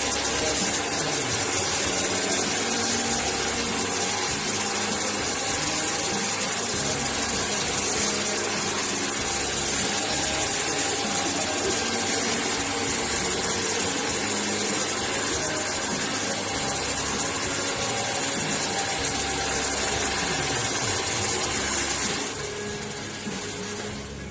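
Hand-held hair dryer blowing steadily with a loud rushing hiss, winding down near the end.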